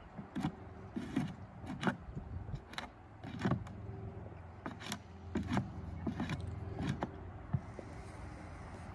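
Irregular sharp knocks and clicks, about a dozen spread unevenly, like a horse's hooves shifting on a wooden platform, over a steady low hum.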